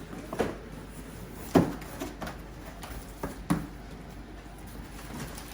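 Handling and opening the cardboard box of a boxed single bed: about half a dozen short knocks and thumps, the loudest about one and a half seconds in and another near three and a half seconds.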